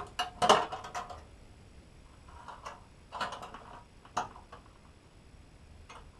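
An LED TV's backlight strip being handled and worked loose from the TV's back panel: a run of clicks and rattles, loudest in the first second, then two shorter clusters and a single sharp click about four seconds in, after which it goes quiet.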